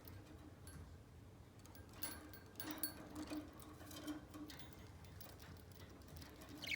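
Faint scattered clicks and taps of a budgerigar moving about its cage, clustered between about two and four and a half seconds in.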